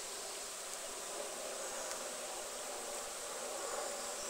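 Steady background hiss with a faint, even hum beneath it.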